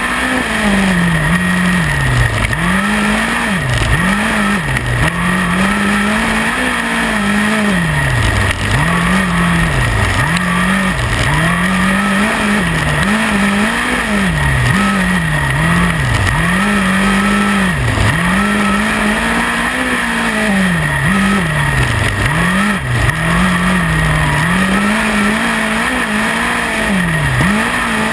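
Midget race car engine heard onboard during hot laps. Its pitch climbs and drops sharply over and over, about every second and a half, as the throttle is opened on the straights and cut for the turns of a short dirt track.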